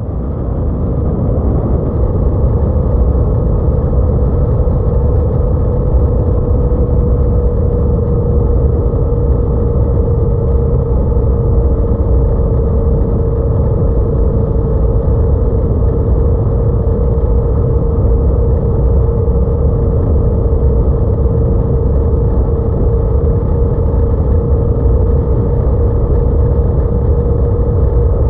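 Motorcycle running at a steady cruise on the open road, heard from a camera riding on the bike: a loud, even engine and road rumble with one constant tone through it. It fades in over the first couple of seconds.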